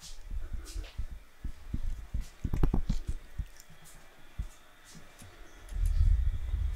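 Handling noise on a handheld camera's microphone: irregular low thumps and rubbing, with a louder low rumble near the end.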